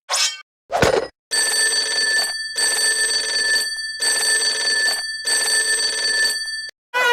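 Two short cartoon effect sounds, then an electric bell ringing in four bursts of about a second each with short gaps between them.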